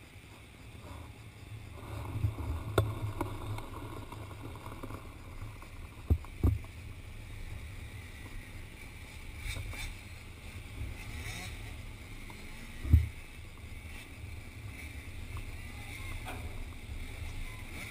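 Wind rumbling on the microphone, with distant motocross bike engines buzzing faintly and a few sharp thumps, the loudest about two thirds of the way through.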